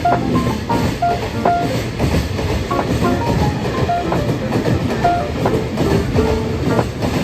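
Freight train running along the track, a continuous rumble of wheels and cars.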